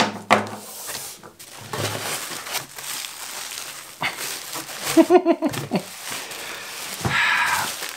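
Plastic wrapping crinkling and rustling as a plastic-wrapped parcel is pulled out of a cardboard box and handled, in irregular bursts, with a brief voice sound about five seconds in.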